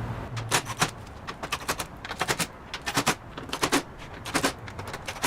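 Impact driver hammering in short bursts, about seven, as it runs screws into the window frame of a garage door panel.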